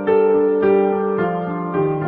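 Soft background piano music, slow sustained notes.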